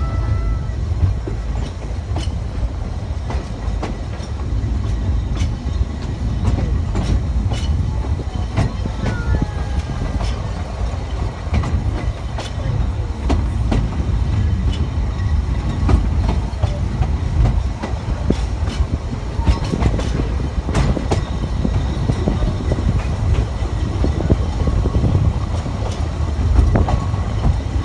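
Narrow gauge railway carriage rolling slowly, heard from on board: a steady low rumble of the wheels and running gear, with frequent sharp clicks and knocks as the wheels pass over the rail joints.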